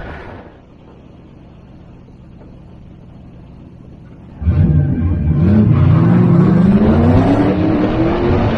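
Ford 5.0 fuel-injected V8 of a 1986 Isuzu Pup drift truck idling quietly, then about four and a half seconds in it suddenly revs hard. Its pitch rises and dips once, then climbs steadily as the truck accelerates away.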